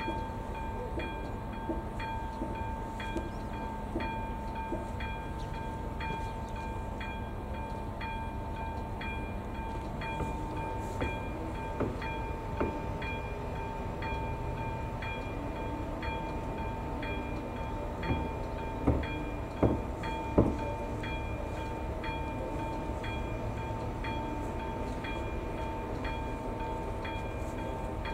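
AŽD ZV02 electronic level-crossing bell ringing its warning, an even ding about twice a second over a steady ringing tone. A few louder sharp knocks come about two-thirds of the way through.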